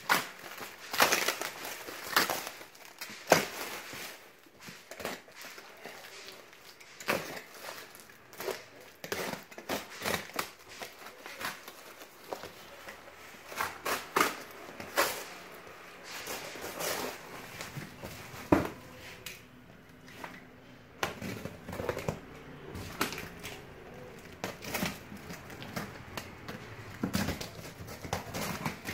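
Plastic wrap and packing tape being cut and torn off a cardboard box, with irregular crinkling, crackling and ripping of plastic, tape and paper.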